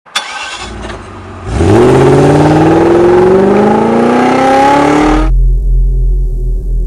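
Car engine accelerating, its pitch rising steadily for about four seconds before cutting off suddenly, then a low steady hum. A sharp click at the very start.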